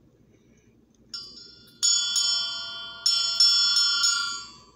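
A small metal bell rung with about half a dozen quick strikes. Each strike leaves several clear high tones ringing on, and they fade away near the end.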